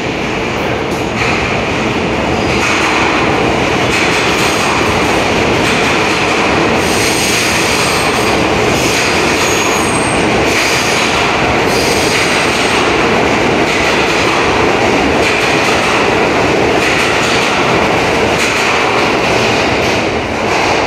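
New York City subway train running along the track, its wheels rumbling steadily on the rails, heard from aboard. A thin, high wheel squeal comes and goes in the middle, with clicking over the rail joints.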